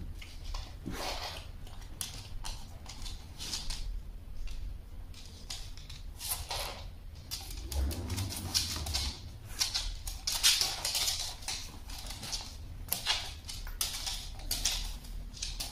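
Dogs' claws clicking and pattering irregularly on a wooden floor as two dogs shuffle around each other, with a soft low thump about eight seconds in.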